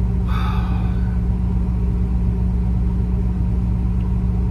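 Semi truck's engine idling, a steady low drone heard inside the cab. About half a second in there is a brief higher-pitched sound lasting well under a second.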